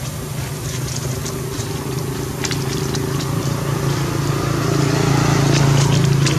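A motor engine runs with a steady low drone, growing a little louder near the end. Dry leaves crackle now and then.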